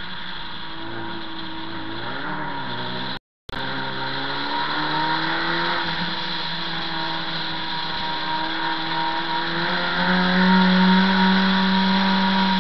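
In-car sound of a 1300 cc class race car's engine pulling through slow corners, its pitch rising and falling with the throttle, loudest over the last few seconds. The sound cuts out completely for a fraction of a second a little past three seconds in.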